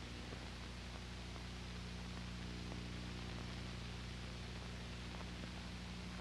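Steady low electrical hum under a wash of hiss, the background noise of an old film soundtrack, with no other clear sound.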